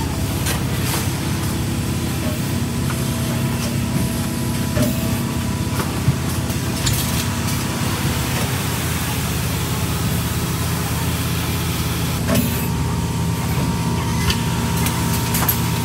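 Molded-pulp tableware production line running: a steady low machine hum with scattered sharp clicks from the moving machinery.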